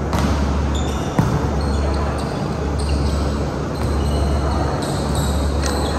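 A volleyball is struck by players' hands and arms, with sharp smacks near the start, about a second in and near the end. Sneakers squeak on the hardwood court, over a steady low hum.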